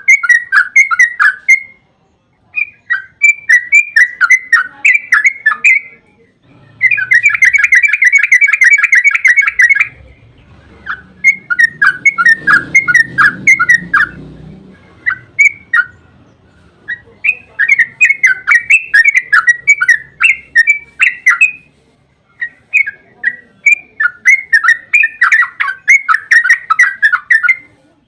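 Yellow-vented bulbul (trucukan) singing: loud, rapid, bubbly chattering phrases of a few seconds each, separated by short pauses.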